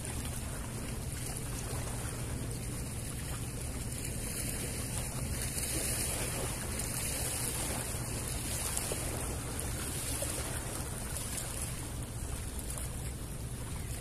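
Steady wind and small waves lapping against a rocky shore: an even low rumble with a high hiss and no distinct events.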